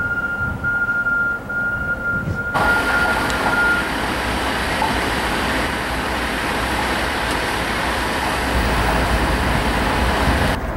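Idling Metrolink diesel locomotives with a steady high-pitched whine over a low engine rumble. About two and a half seconds in, the whine fades out and a steady rushing noise takes over, its low rumble growing near the end.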